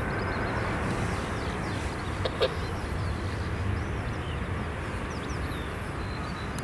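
Steady low rumble of distant jet aircraft engines.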